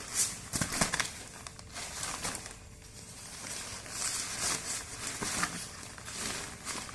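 Packaging and a fabric carry bag being handled during an unboxing: irregular rustling and crinkling, with a few sharp handling clicks near the start.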